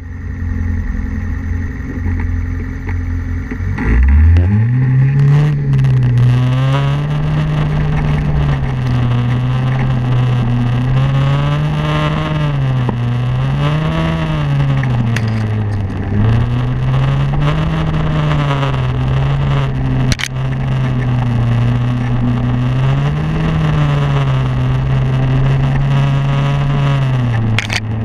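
Snowmobile engine revving up sharply about four seconds in, then running with its pitch rising and falling every couple of seconds as the throttle is worked.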